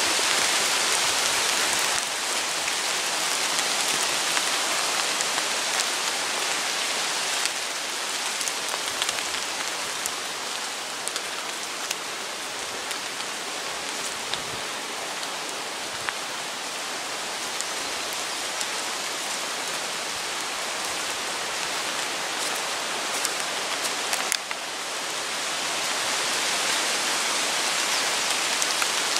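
Rain falling on forest leaves: a steady hiss with scattered ticks of single drops, softer through the middle and louder again near the end.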